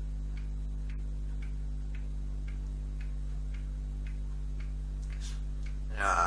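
Regular ticking, about two ticks a second, like a clock, over a steady electrical hum.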